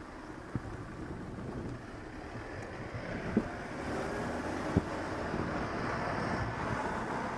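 Wind noise on the microphone over a steady low road and traffic rumble, with two short knocks, one about three and a half seconds in and one near five seconds.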